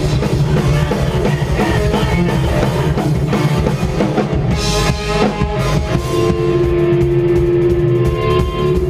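Post-hardcore band playing live, with drum kit and guitar. About six seconds in, the drumming thins and long held notes ring out.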